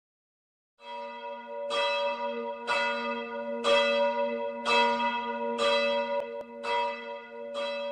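A church bell ringing in a slow, even toll, struck about once a second, its hum carrying on between strikes. It starts just under a second in.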